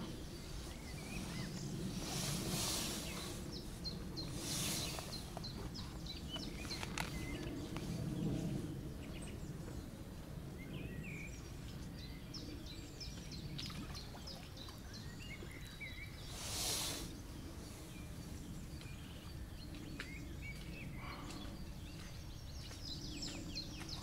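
Small birds chirping and singing in short, scattered phrases over a steady low rumble of outdoor background noise. A few brief rushes of noise cut in now and then.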